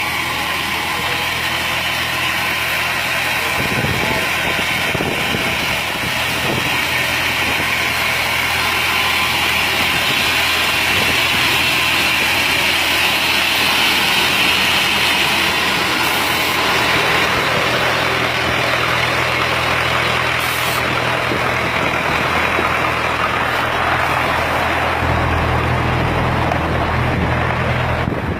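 Heavy construction machinery's engine running steadily: a low engine hum under a broad mechanical hiss, the hum getting louder about 25 seconds in.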